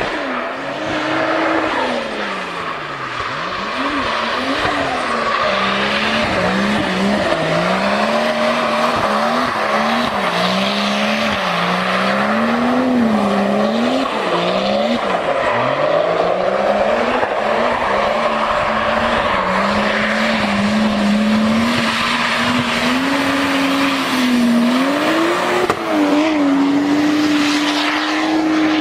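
Toyota Supra's engine revving up and down again and again as the car drifts, its pitch rising and falling with the throttle, over tyre noise from the slide. Near the end the revs settle into a steady, higher note.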